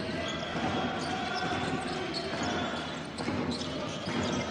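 Live basketball game audio in an arena: steady crowd noise, with a basketball bouncing on the hardwood court and short high squeaks.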